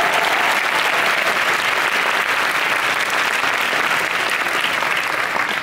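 Theatre audience applauding, a dense steady clatter of many hands that dies away at the very end.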